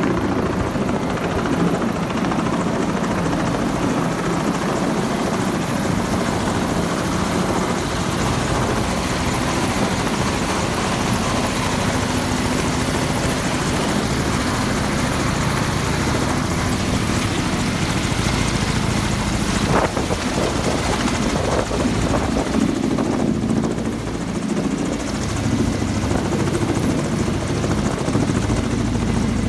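Kamov coaxial-rotor helicopter hovering close overhead with a container slung beneath it on a long line: steady rotor and turbine noise.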